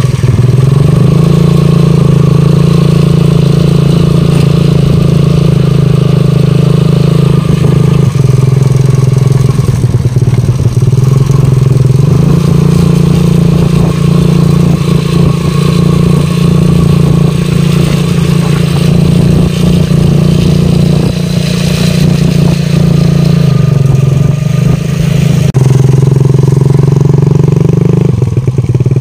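Small motorcycle with a sidecar riding along a dirt track, its engine running steadily with a few shifts in engine speed along the way.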